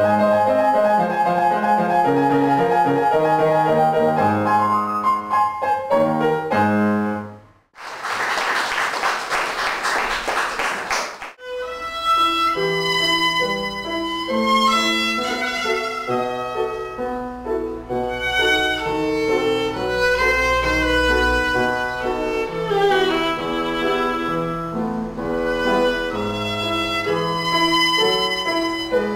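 Upright piano played by a child, stopping about seven and a half seconds in, followed by about three seconds of audience applause. Then a solo violin is bowed for the rest.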